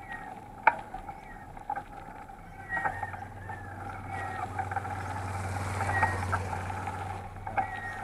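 Riding noise of a mountain bike picked up by an action camera mounted on it: sharp rattling clicks from bumps in the road over a steady whine, with a low rumble and hiss that swells in the middle and fades near the end.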